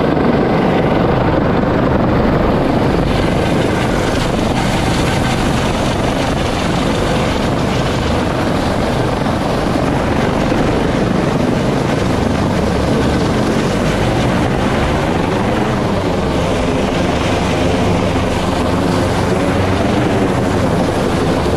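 U.S. Coast Guard MH-65 Dolphin helicopter hovering close overhead, its rotors and turbine engines running loud and steady. Some of its tones waver in pitch about two-thirds of the way through.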